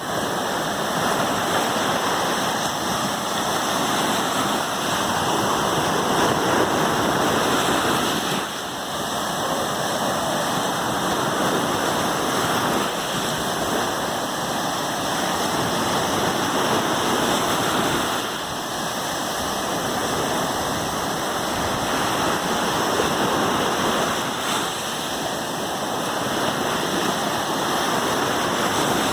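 Sea surf: a steady rush of waves washing onto a shore, easing briefly a few times as one wave draws back and the next builds.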